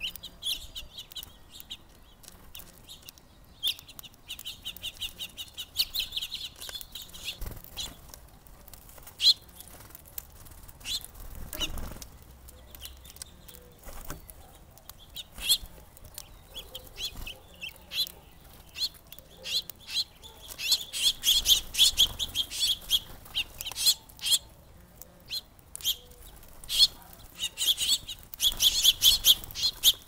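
House finches chirping in fast runs of high notes at a seed feeder, with wing flutters and sharp clicks as birds land and scuffle on the feeder. The chirping is busiest in the last third.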